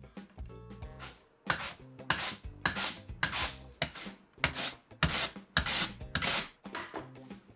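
Korean radish being julienned on a mandoline slicer: repeated rasping strokes across the blade, about two a second, growing strong about one and a half seconds in.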